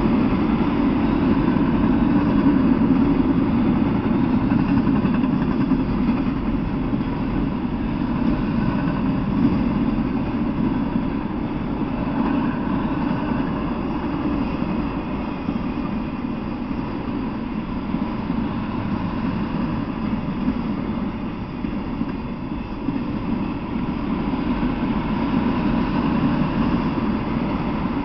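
Freight train of autorack cars rolling past: a steady, low rolling noise of the cars on the rails, easing slightly in the second half.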